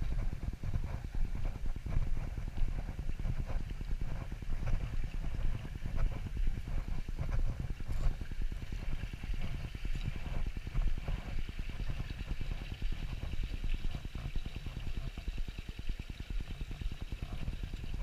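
Walking footsteps on a muddy woodland path, heard as a steady run of dull thuds with jostling from a body-worn camera. A small stream trickles for a few seconds around the middle as the walker crosses a boardwalk over it.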